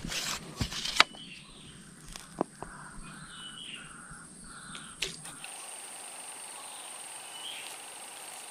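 A few sharp clicks and knocks over a steady high insect hum. About five seconds in, the sound changes to a steady chorus of crickets and other insects.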